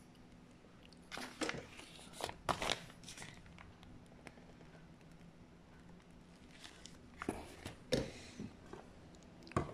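Handling noises at a stainless steel work surface while piping cream and placing strawberries on a cake roll: short knocks and clicks in two clusters, about a second in and again about seven seconds in, with a sharper tap near the end, over a faint steady hum.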